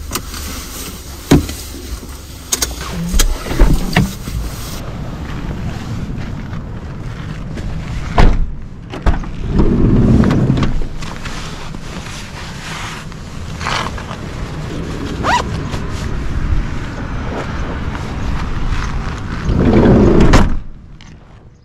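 A car driving, with a steady low rumble of engine and road noise and a few sharp knocks.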